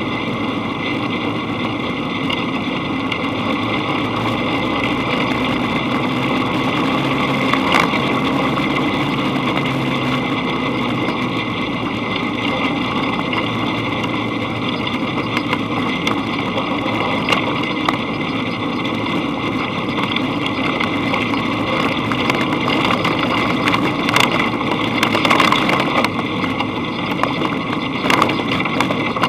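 Dune buggy engine running steadily while driving on a dirt road, with road and rattle noise and a few sharp knocks from bumps.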